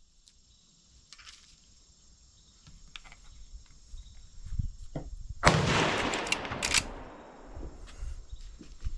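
A single .357 Magnum gunshot about halfway through, its report trailing off over a second or so.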